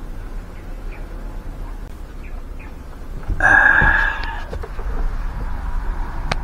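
A rooster crows once for about a second, midway through, over faint bird chirps and a low steady hum. A few light clicks follow as the phone camera is handled.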